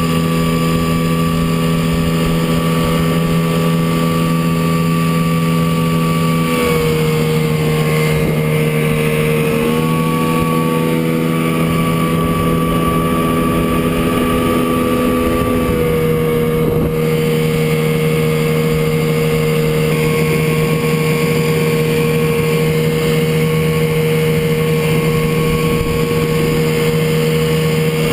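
1967 Chrysler 9.2 hp two-stroke outboard motor running steadily at speed. Its pitch dips slightly about six seconds in, comes back up near ten seconds, and shifts a little again near sixteen seconds.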